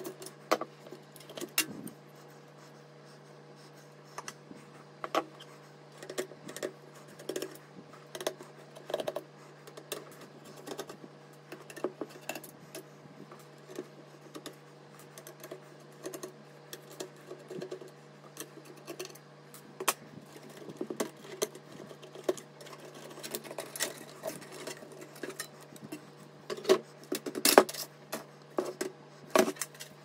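Hand screwdriver undoing the motherboard screws and hands handling parts in a PC case: irregular clicks, taps and light metallic clatter, loudest near the end.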